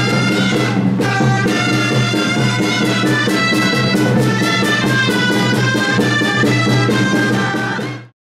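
A street band of wind instruments and drums playing a lively festive tune, the drums keeping a fast, even beat under the melody; the music cuts off abruptly near the end.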